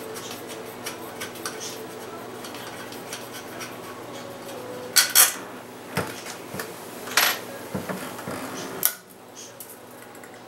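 Small metallic clinks and taps of a screwdriver and screws against the metal base of a ceiling light fixture being unscrewed and taken down, with a few sharper clinks around the middle, over a faint steady hum.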